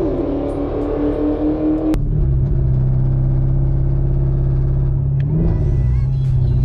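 A car engine revving high over a hiss, cut off abruptly about two seconds in. Then a Camaro's 6.2-litre LT1 V8 held at one steady rpm, with a brief blip about five seconds in: the car holds revs and won't let the wheels spin for a burnout.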